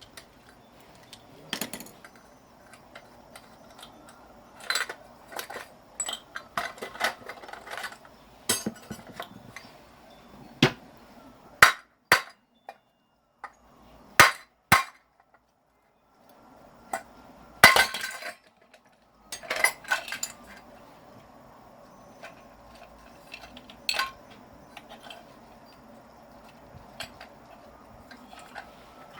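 Hand tools knocking and clinking on metal at an irregular pace, a few strikes much louder than the rest, while an electric motor is taken apart for its copper windings.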